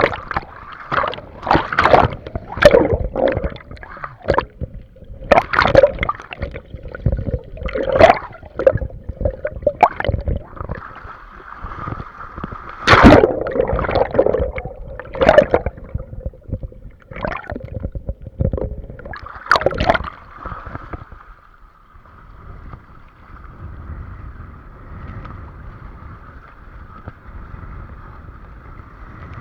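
Water splashing and slapping against a windsurf board in irregular bursts, giving way after about twenty seconds to a quieter, steady rush of water and wind.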